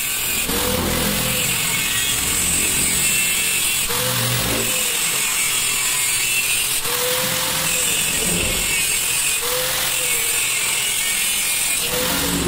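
Suzuki Raider 150 Fi motorcycle's single-cylinder four-stroke engine running loudly through a gutted ('kalkal') exhaust with a big stainless elbow. It is blipped on the throttle about every two and a half seconds, the pitch rising and falling back each time.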